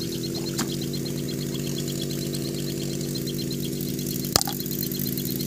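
An engine running steadily, unseen, with an even low hum. Over it comes a rapid, evenly repeating high chirping that fades out about halfway through, and a single sharp click a little past four seconds in.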